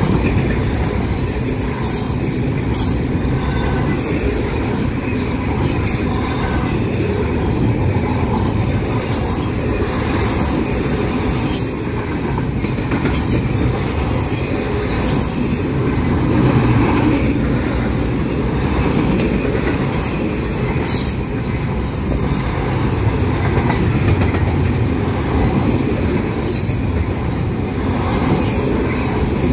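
Double-stack intermodal freight train cars rolling past close by: a steady, loud rumble of steel wheels on rail, with a few sharp high clicks from the cars now and then.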